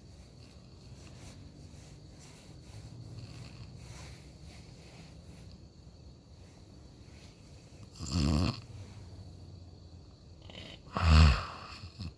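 A person snoring: two loud snores, one about eight seconds in and a louder one about three seconds later, over quieter breathing.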